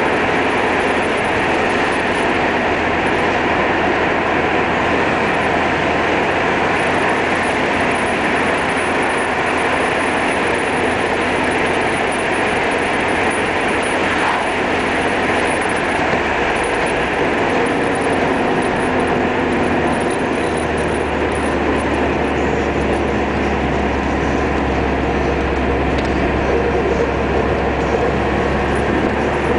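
A car driving along a road: a steady, loud rush of engine and tyre noise. The low engine hum changes pitch a little past halfway.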